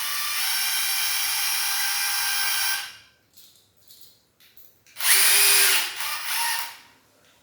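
Power drill-driver running in two bursts, about three seconds and then about two seconds, driving the screws of a door lockset.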